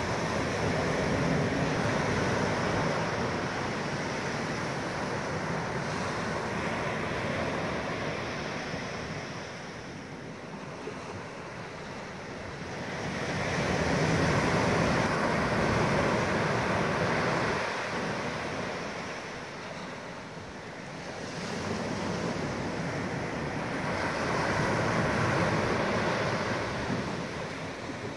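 Small ocean waves breaking and washing up a sandy beach. The surf swells and fades in slow surges, three times, several seconds apart.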